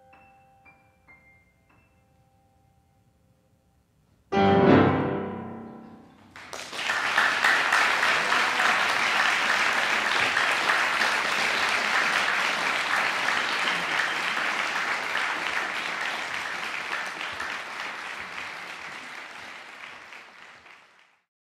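A grand piano played four hands: a few soft high notes ring and fade, then after a short pause comes one loud final chord deep in the bass. The audience breaks into applause about two seconds after the chord; it runs steadily for some fifteen seconds and fades out near the end.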